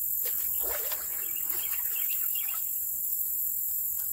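Steady high-pitched chorus of crickets and other insects.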